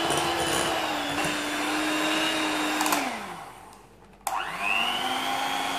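Electric hand mixer whining steadily with its beaters in a thick batter. About three seconds in it is switched off and winds down. About a second later it is switched back on, its pitch rising as it spins up to speed again.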